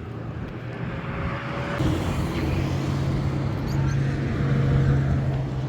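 A vehicle engine running, getting louder about two seconds in and settling into a steady low hum.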